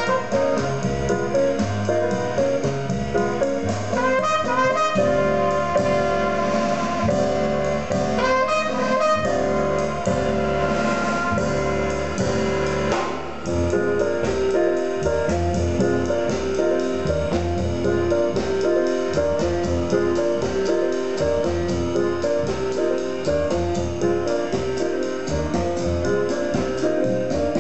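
Jazz with brass instruments playing through Tannoy Kensington loudspeakers driven by a McIntosh MA7000 integrated amplifier, picked up in the listening room.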